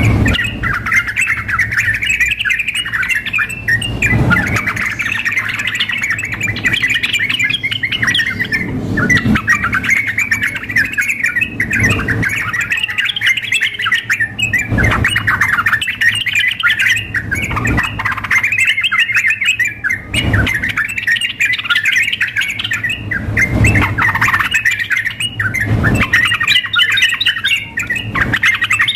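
Yellow-vented bulbuls (trucukan) chattering and singing without pause, several birds' bubbling phrases overlapping. Dull low thumps come every two to three seconds.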